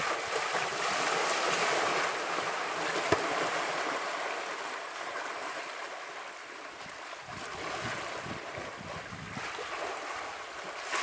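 Water splashing and churning as young African elephant bulls wrestle and shove each other in a waterhole, loudest in the first few seconds and then easing off. A single sharp click about three seconds in.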